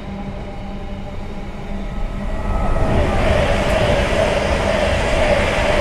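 Container freight train's wagons rolling steadily on the main line. About two and a half seconds in, a louder, broad rush joins them as an electric passenger train comes through on the adjacent track.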